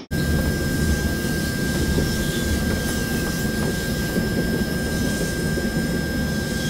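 Straddle-beam monorail train running on its guideway: a steady low rumble with a constant high-pitched whine over it.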